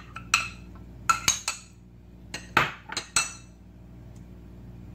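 A spoon clinking and scraping against glass bowls while scooping out thick curd: about half a dozen sharp clinks in the first three seconds, then quiet.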